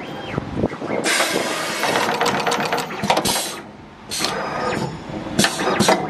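Automatic multi-core wire stripping and crimping machine cycling on a cable: two long stretches of hissing noise peppered with rapid clicks, split by a short lull about halfway, with a brief whine that rises and falls just after the start.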